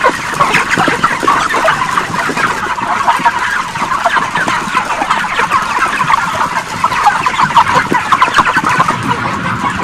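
Dense, continuous chatter of a large flock of broiler chickens, many short clucks and peeps overlapping with no pause.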